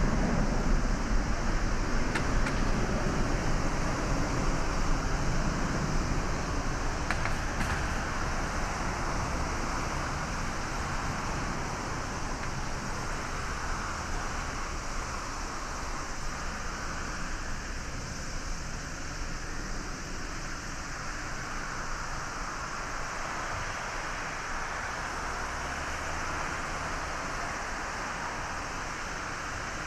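GE90 turbofan engines of a Boeing 777-300ER at takeoff power: a steady, dense jet noise that fades gradually as the airliner accelerates away down the runway on its takeoff roll.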